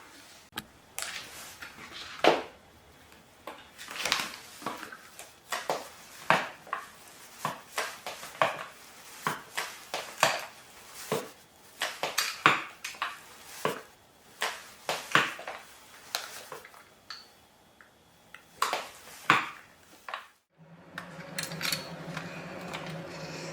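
Anko pneumatic stepper being worked: irregular sharp clicks and clatters from its pedals and frame, about one or two a second. Near the end they stop and a steady low hum takes over.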